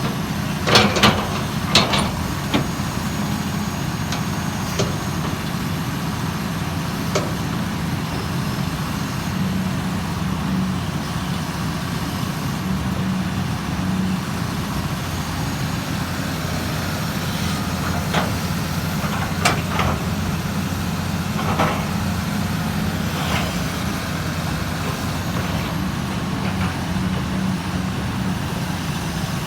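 Hydraulic excavator's diesel engine running steadily, with a cluster of sharp metallic knocks in the first couple of seconds and a few more later on, typical of the bucket and arm working soil.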